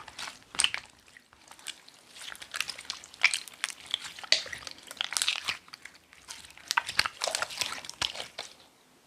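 Slime being squished and kneaded by hand, giving dense wet crackling and popping clicks that stop about a second before the end.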